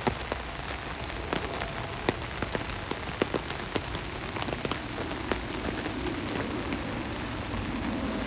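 Rain falling on a vehicle's front window glass: a steady hiss with many separate sharp ticks as single drops strike. From about halfway, a low rumble builds beneath it and grows slightly louder.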